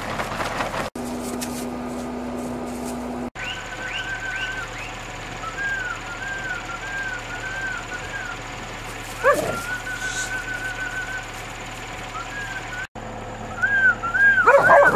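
Stray dogs whining over food, a long run of high, wavering whines. In the last couple of seconds the whines get louder and crowd together as the dogs squabble over the food. About a second in, a steady hum lasts about two seconds.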